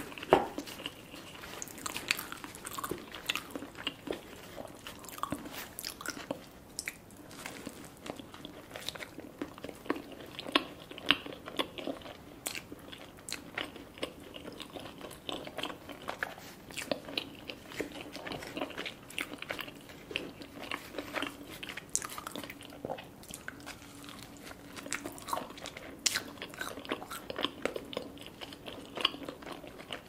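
Close-miked chewing and biting of naan dipped in curry, with many irregular mouth clicks and one sharper click about half a second in.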